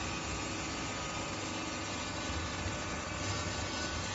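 Horizontal baler running, a steady machine hum and noise with several constant tones and no change.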